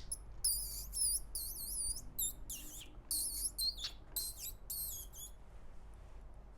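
A man imitating an animal with his mouth: a quick run of about a dozen short, very high squeaks that wobble in pitch, stopping about five seconds in.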